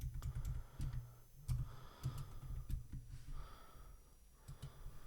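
Faint, irregular computer keyboard clicks, with soft breathing close to the microphone.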